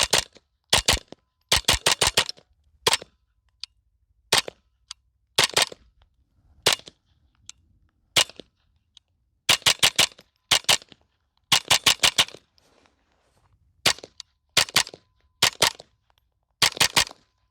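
Black Collar Arms Texas Typewriter, a .22 Long Rifle rifle built around Ruger 10/22 parts, firing quick strings of two to six shots with short pauses between strings. A few fainter single cracks fall between the strings.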